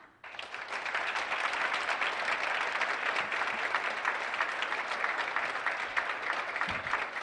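Audience applauding, starting suddenly just after the start and continuing steadily as dense clapping.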